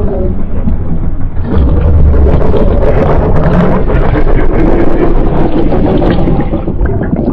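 Loud, rumbling, made-up giant-monster sound effect: a dense, growling roar-like rumble with a heavy low end, dipping briefly a little over a second in.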